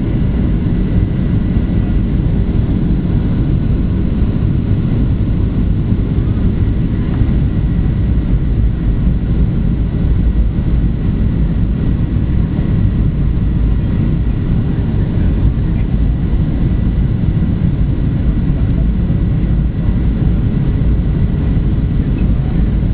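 Steady cabin noise inside a Boeing 737-800 on approach: the low roar of its CFM56 engines and the airflow over the fuselage, with a faint steady whine above it.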